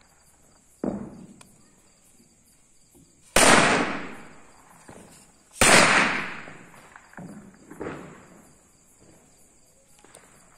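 Diwali firecrackers going off: a small bang about a second in, then two loud bangs two seconds apart, each dying away in a long echo, followed by a few fainter pops.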